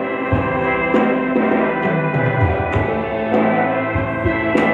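Live band music with an electric bass playing low notes, one sliding down about two seconds in, under sustained chords and light, regular percussion ticks.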